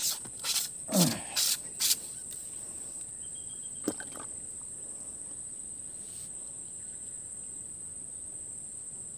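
Insects droning steadily in one high, unbroken tone, with a few sharp clicks in the first two seconds.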